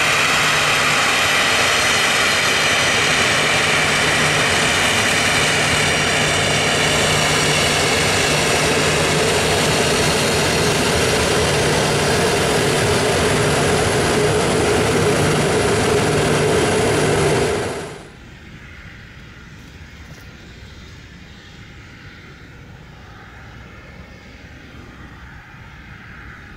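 Boeing 737-300's CFM56 turbofan engines running at low thrust while the airliner taxis, a loud steady jet whine with several held tones. About 18 seconds in it cuts off abruptly to a faint outdoor background hiss.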